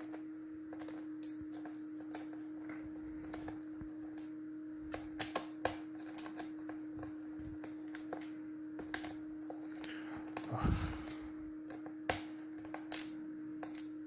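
Small screwdriver tip clicking and scraping in the screws of a laptop's plastic bottom panel: irregular light clicks, some in quick little runs, with a louder knock and rustle about two-thirds through. A steady faint hum runs underneath.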